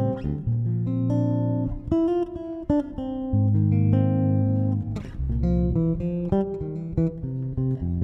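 Cort A6 Plus FMMH six-string electric bass being played: plucked low notes with higher tones ringing over them, changing every half second or so, with a sharp percussive attack about five seconds in.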